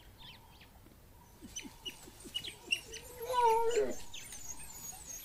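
African wild dogs giving high twittering greeting calls: a quick run of short chirps, about four a second, then one louder whine about three seconds in, rising then falling.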